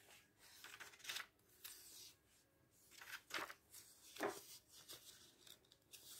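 Faint rustle and swish of glossy catalogue pages being handled and turned, a few soft paper swishes between near-silent gaps.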